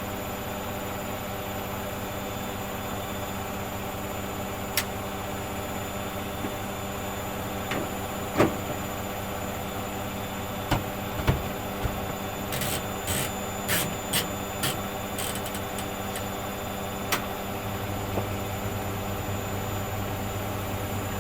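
Hoover Dynamic Next washing machine running a cotton 40 cycle: a steady motor hum with scattered knocks, and a run of clicks about halfway through. A deeper low hum joins near the end.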